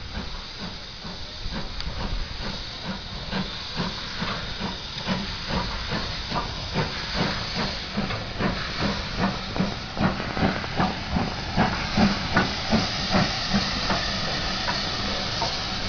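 Two steam locomotives, Southern U class 2-6-0 31806 and rebuilt West Country Pacific 34028 Eddystone, moving slowly past at the head of a train, hissing steam. Under the hiss is a regular beat about three times a second that grows louder as the engines come close.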